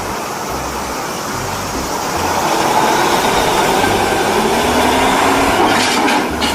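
A small electric motor and gears of a toy RC truck running with a steady whirr and a faint whine that rises and falls in pitch. There are a few clicks near the end.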